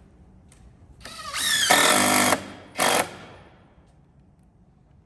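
Power drill driving a screw into a wooden picnic-table bench top: the motor spins up with a rising pitch about a second in and runs for about a second. A short second burst near 3 s seats the screw.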